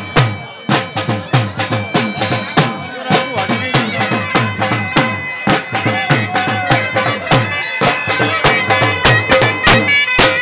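Loud folk dance music: a reedy wind instrument playing a melody over a held drone, with a drum beating a steady rhythm.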